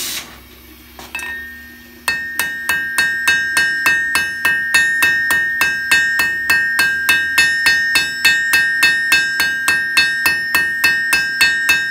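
Hand hammer striking hot steel on the edge of an anvil in a fast, even rhythm of about three to four blows a second, starting about two seconds in, with the anvil ringing steadily between blows. The smith is drawing out a taper on a forged hook, using the anvil edge as a fuller. There is a single light tap about a second in.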